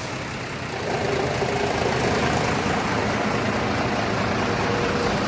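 A large bus's diesel engine running steadily at low revs as the bus reverses. It gets a little louder about a second in.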